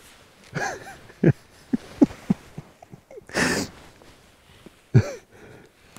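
A hunter imitating moose rut calls with his voice: a few short low grunts, two rising-and-falling calls, and a breathy snort-like blast about halfway through.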